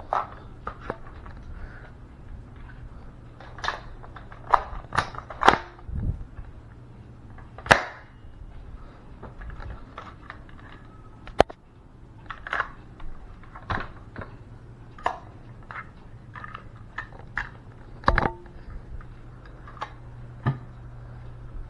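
Sharp clicks and knocks at irregular intervals from a toy gun being handled and worked, over a steady low hum.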